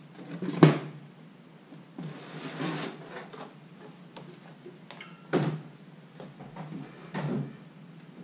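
Plastic packing strap on a cardboard box snipped with scissors, snapping with a sharp click about half a second in, followed by cardboard flaps being opened and rustling, with a couple of knocks later on.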